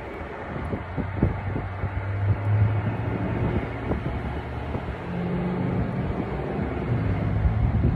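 Wind rumbling and buffeting the microphone, with a low steady hum that comes in about a second in and again from about five seconds on.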